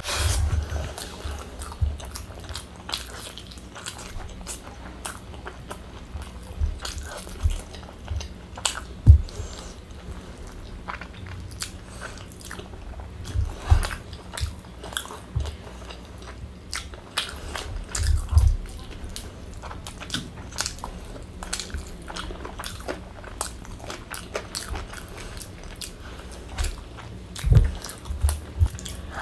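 Close-miked chewing and wet mouth sounds of a person eating rice and curry by hand: irregular smacks and clicks, with a few dull thumps, the loudest about nine seconds in.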